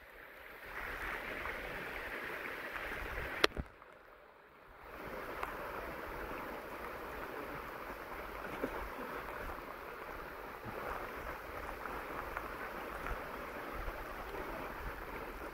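Steady rain falling on forest trees and wet ground, an even hiss. About three and a half seconds in there is a sharp click, and the rain drops out for about a second before coming back.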